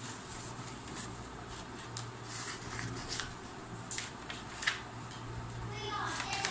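A sheet of paper being handled and folded on a table: soft rustling with a scattering of short, crisp paper crackles and taps, over a steady low hum.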